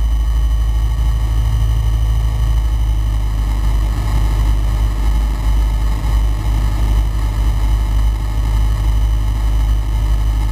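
Flight Design CTLS light aircraft's Rotax 912 four-cylinder engine and propeller running steadily in flight, a constant deep drone heard inside the cockpit.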